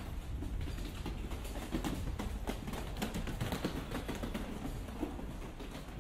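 Small hard wheels of a rolling suitcase clattering over cobblestones in a rapid, uneven rattle, loudest about two to four seconds in, with footsteps on the stones.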